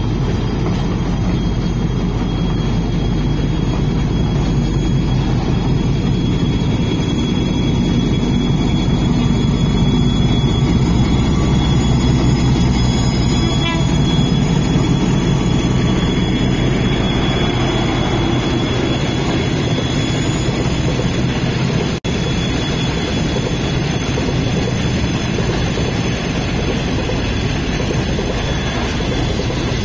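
Trains rolling through a railway yard: container flat wagons passing close by with a steady wheel-on-rail rumble, then a diesel locomotive's engine drone that swells and is loudest as it passes about halfway through. A thin, high, steady squeal runs through the rumble.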